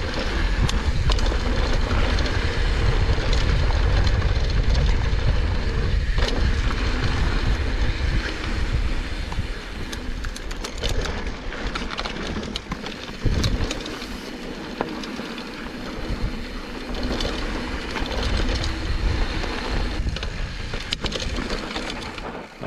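Mountain bike rolling fast over a dirt singletrack: a heavy low rumble of tyres and wind on the camera microphone, with frequent short rattles and clicks from the bike over rough ground. The rumble eases about nine seconds in, and the clicks and rattles carry on over a quieter rolling noise.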